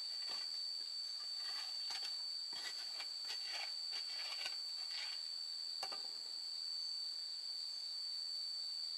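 Crickets chirring with a steady high-pitched tone. Over it, a run of short crackles and clicks in the first six seconds from the wood fire and the firewood and sticks being handled at the clay stove.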